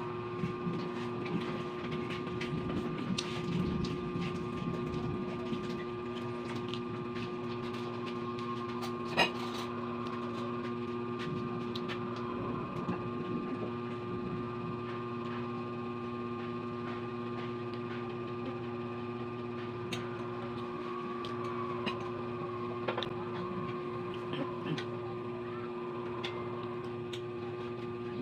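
Eating sounds of someone chewing fried pork and stew by hand, with many small clicks and smacks and one sharper click about nine seconds in, over a steady background hum with several constant tones.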